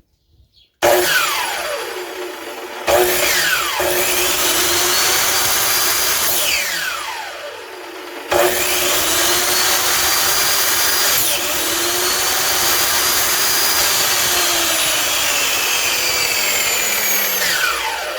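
SKIL 3311 sliding miter saw's brushed universal motor switched on three times and running free, each run a steady high whine that falls in pitch as it winds down after release. The last run lasts about nine seconds. It runs with its normal sound again, the carbon brush now reseated to touch the armature fully after wearing on one edge had made the saw falter.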